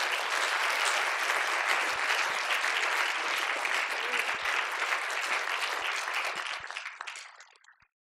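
A seated audience applauding steadily, the clapping dying away near the end.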